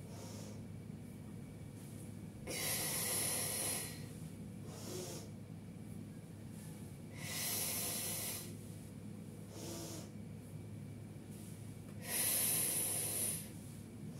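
A woman's deep, forceful breaths timed to a toe-touch stretch: three long, loud breaths about every four and a half seconds, each lasting over a second, with shorter, fainter breaths between them.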